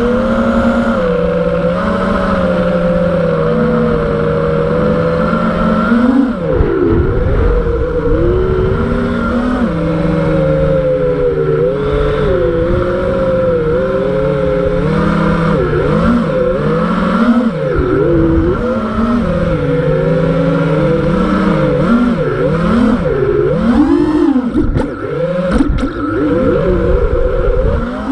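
Brushless motors and 5-inch props of an FPV freestyle quadcopter whining. The pitch rises and falls constantly with the throttle, with rushing air noise underneath. In the second half the throttle changes come faster, with quick drops and punches.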